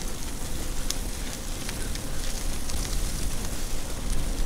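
Bicycle tyres rolling over a gravel and dirt trail: a steady crackling hiss with scattered small clicks, over a low rumble.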